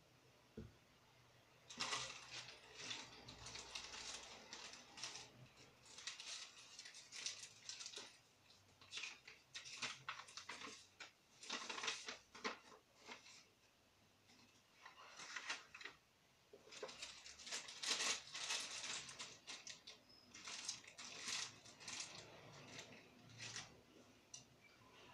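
Rustling and crinkling of a paper instruction sheet and a plastic parts bag being handled, in a string of irregular bursts, with small clinks of brass light-fitting parts on the table.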